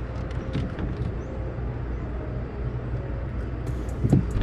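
A boat's motor running with a steady low hum, with scattered light clicks and taps and one short thump about four seconds in.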